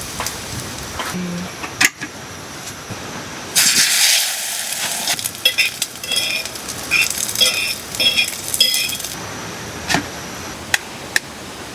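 Dishes and cutlery clinking: a short rushing hiss about four seconds in, then a run of ringing metal-and-glass clinks, then a couple of sharp taps near the end.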